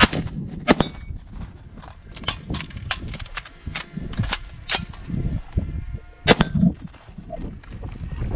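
Rifle shots fired in quick succession with the ringing clang of hits on steel targets. A loud pair comes right at the start, fainter shots follow through the middle, and another loud shot and ring comes about six seconds in.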